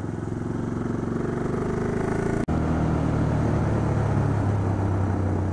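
On-board sound of a KTM 690 Duke's single-cylinder engine running steadily under way, with wind and road noise. About halfway through the sound drops out for a moment, then the engine runs on with a lower, stronger note.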